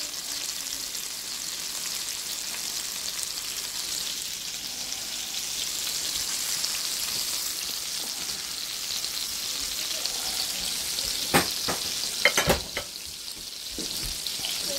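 Flour-breaded cube steaks frying in hot grease in a skillet, a steady crackling sizzle. Near the end, three or four sharp knocks come in quick succession.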